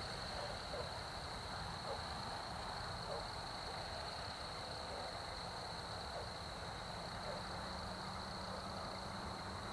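Faint, steady high-pitched chirring of crickets, with a few faint soft sounds lower down now and then.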